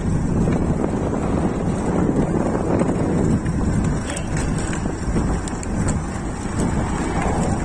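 Wind rumbling steadily on the microphone of a moving e-bike.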